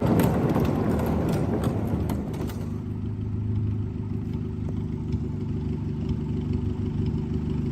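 Car engine running, with a rougher, noisier stretch with light clatter in the first couple of seconds that settles into a steady idle.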